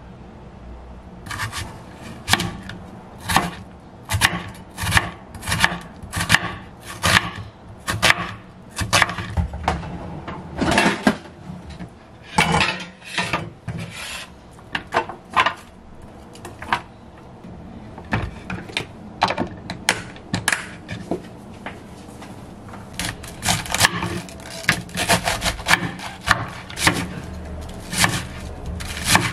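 Chef's knife cutting onion and cabbage on a wooden cutting board: crisp knocks of the blade through the vegetable onto the board, about one a second at first, quickening to two or three a second near the end.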